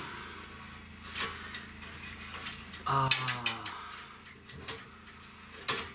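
Light, scattered clicks and knocks of a power cord being handled and run over wooden roof strapping.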